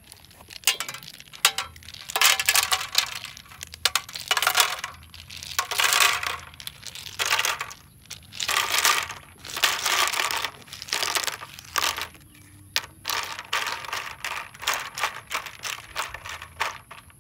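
Snail shells clattering and clinking against each other, the plastic basket and the metal pan as handfuls of snails are tipped into the water-filled pan, in repeated bursts of clicks.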